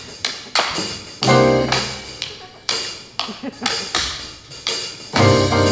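Live cabaret band music from double bass and keyboard, with sharp percussive hits about three a second. A full chord over a low bass note is struck about a second and a half in and again near the end.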